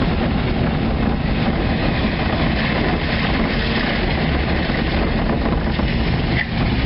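Steady engine and road noise of a vehicle being driven along a wet road, with a low rumble throughout.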